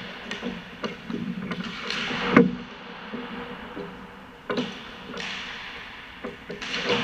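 Hockey sticks knocking against pucks in a few sharp, echoing cracks, the loudest about two and a half seconds in and another pair near the end, with skate blades scraping the ice between them.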